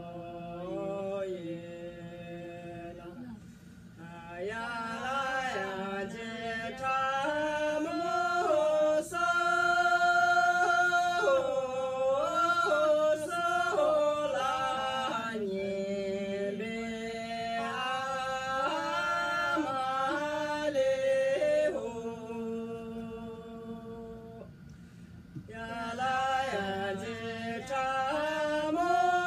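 Women singing together unaccompanied, a slow song with long held notes and sliding pitch, breaking briefly between phrases about four seconds in and again after about twenty-four seconds.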